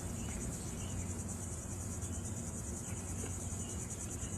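Insects chirping outdoors in a steady, rapid high-pitched pulsing, over a faint low background rumble.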